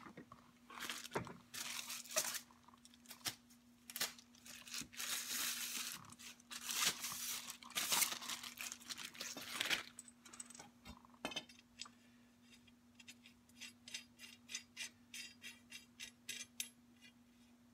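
Steel through rod being slid and worked through the holes of a VW Beetle front axle beam: metal scraping, clinking and knocking for about the first ten seconds, then a run of quick, light metallic clicks, about four a second.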